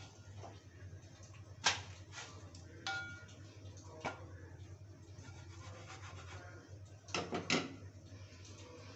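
Clattering metal knocks of a nonstick frying pan being handled on a steel gas stove: lifted off the burner grate, then set back down with a few quick knocks near the end, with some scraping in between.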